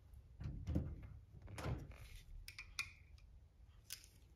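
A scattered series of quiet clicks and light metallic clinks as loose steel bearing balls are picked out of a bicycle front hub's cup-and-cone bearing with a magnetic screwdriver, one or two clinks ringing briefly.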